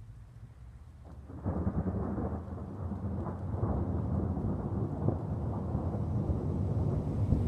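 Thunder: a low rumble that swells suddenly about a second in and keeps rolling, with irregular sharper peaks within it.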